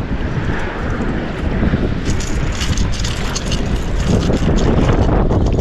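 Wind buffeting the microphone with a loud, low rumble. From about two seconds in, a fast run of small clicks or rattles sits on top of it.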